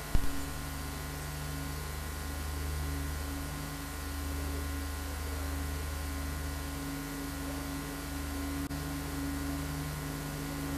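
Steady low hum over a faint even hiss, with a brief knock right at the start.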